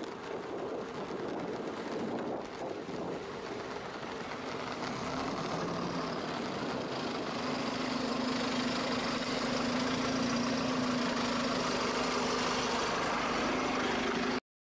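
Street traffic noise, then a bus's diesel engine idling close by with a steady low hum that grows louder through the second half as the bike draws alongside. The sound cuts off abruptly near the end.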